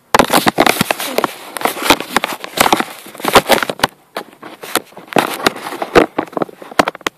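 Loud, irregular crackling and rustling from a camera microphone being handled and rubbed close up, with many sharp clicks.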